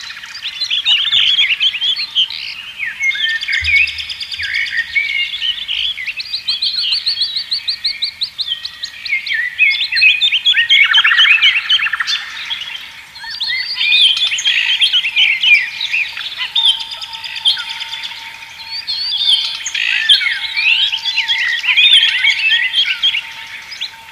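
Several songbirds singing at once in a dense chorus of quick chirps and rapid trills that overlap continuously.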